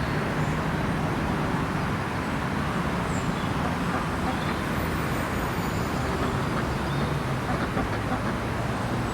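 Steady road traffic noise: a constant low rumble and hiss, with a faint short high chirp about three seconds in.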